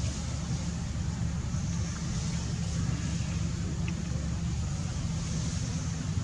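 Steady low background rumble with an even hiss above it, with no distinct calls or knocks.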